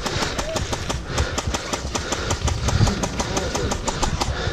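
Airsoft guns firing: many sharp, irregular clicks and cracks several a second, over a steady low rumble.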